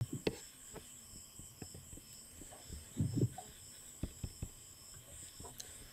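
Faint desk and computer handling noises: scattered soft clicks and knocks, loudest in a short low cluster about three seconds in, over a steady faint high-pitched whine.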